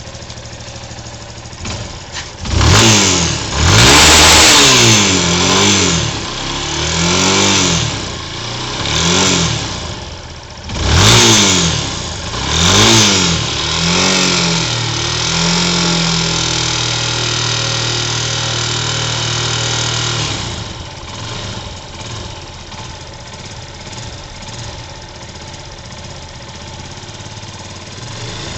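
Yamaha YS250 Fazer's single-cylinder engine revved in about eight quick blips, held at higher revs for several seconds, then dropping back to a steady idle about 20 seconds in. The owner hears a worrying engine noise when it is revved harder, which a new cam chain tensioner has not cured.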